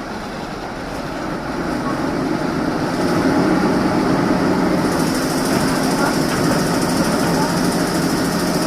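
A motor running steadily, getting louder over the first few seconds and then holding at a constant level.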